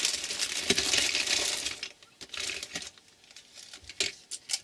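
Colour pencils clattering against one another as they are rummaged through for about two seconds, then a few separate sharp clicks as single pencils are picked up and put down.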